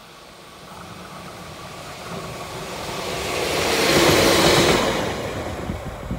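DE15 diesel-hydraulic locomotive hauling a short train of rail-carrying flatcars approaching and passing close by. The engine and wheels on the rails grow louder to a peak about four seconds in, then fade as the train moves away.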